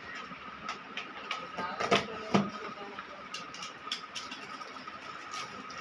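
Irregular clicks and taps of a package being handled and opened, over a steady high-pitched hum, with a short voice-like sound about two seconds in.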